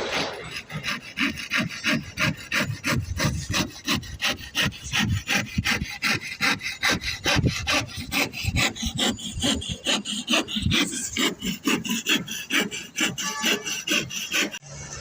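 Hand saw cutting wood in quick, even back-and-forth strokes, about four or five a second, stopping abruptly just before the end.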